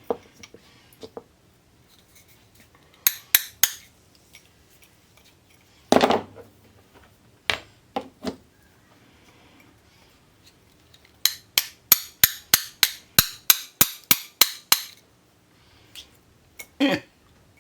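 Small hammer tapping metal in sharp, ringing strikes: a few scattered taps, then a quick run of about four taps a second, trying to drive a melted plastic sleeve out of a pinball pop bumper coil where it has fused in place.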